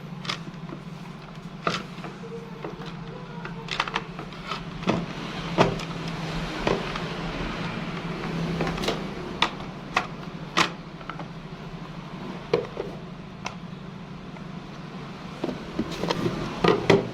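Irregular sharp clicks and knocks, a dozen or so spread through, over a steady low hum.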